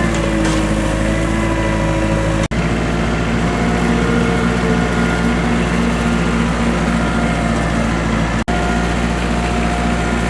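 Kubota diesel engine running steadily while working a log grapple, broken twice by momentary dropouts.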